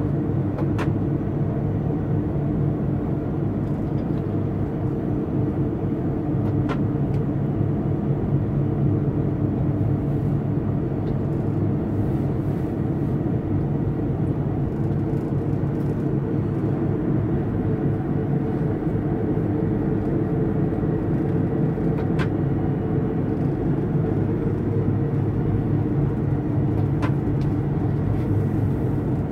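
Steady running noise inside the cab of a DB class 111 electric locomotive under way: a constant low hum and rumble, with a few faint clicks.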